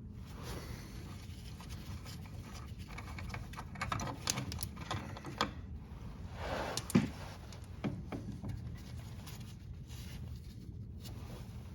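Scattered light clicks, taps and scrapes of hands and tools working on a lawn tractor's belt and parts, busiest in the middle, with one sharper click about seven seconds in.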